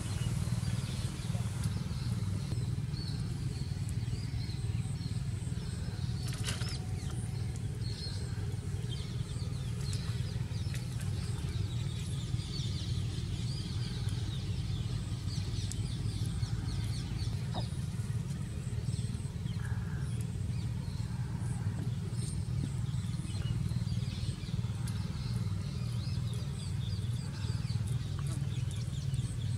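A steady low hum with scattered bird chirps over it.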